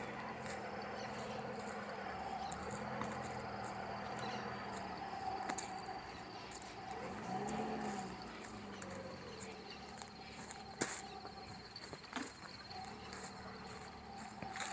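Outdoor nature ambience: insects chirring steadily, with a low, drawn-out animal call rising and falling about halfway through, and a sharp click near the end.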